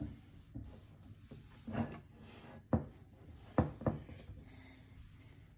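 Hands rubbing and handling sticky no-bake cookie mixture while shaping it into nests, with four short sharp taps in the middle.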